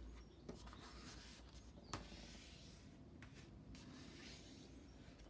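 Faint rustling and rubbing of a square of white cardstock being folded in half and the crease smoothed down by hand, with a light tap about two seconds in.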